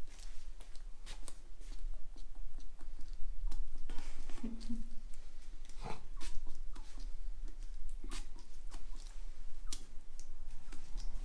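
Latex-gloved hands and a bottle handled over a freshly shaved head while aftershave is applied: irregular soft clicks, taps and crackles, with a short low hum about four and a half seconds in.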